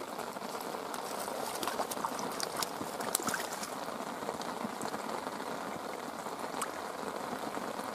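Steady rain falling on the reservoir surface, a constant hiss, with a few sharp ticks scattered through the first half.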